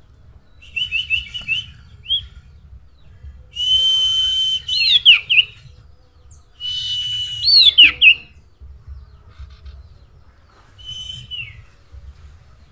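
Common iora (cipoh, sirtu) singing: a quick run of short high whistled notes, then two long steady whistles, each breaking into fast downward-curling notes. A shorter, fainter whistle with a falling glide comes near the end.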